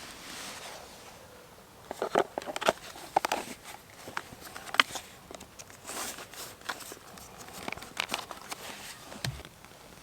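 Irregular sharp clicks and light knocks over a faint rustling, busiest about two seconds in and again toward the middle.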